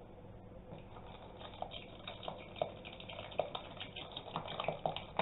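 Oil being poured from a bottle into a jug of lye water: faint, irregular glugging pops that come quicker and louder toward the end.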